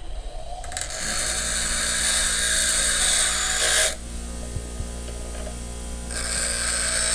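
Electric grinder running and grinding a weld flat on a small steel plate. The motor hums steadily while two spells of loud, high grinding hiss, about three seconds and then two seconds long, mark the metal pressed against the wheel, with a gap between them where only the motor runs.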